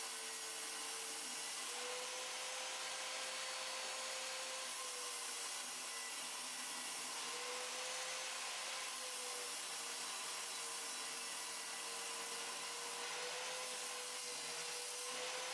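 Circular saw mounted upside down under a homemade table saw, running steadily while ripping a board: a motor hum whose pitch wavers slightly, over a steady hiss.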